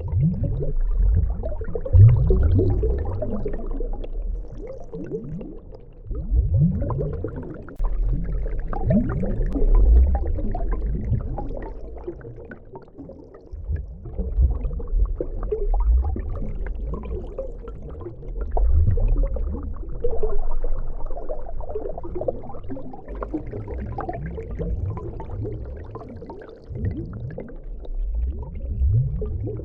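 Underwater water sound effect: low bubbling and gurgling that swells and fades every few seconds, full of short rising blips like bubbles.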